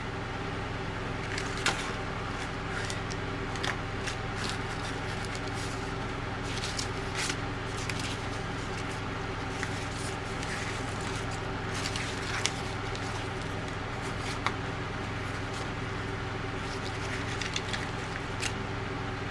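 Steady low mechanical hum with frequent small clicks and rustles and a few sharp knocks.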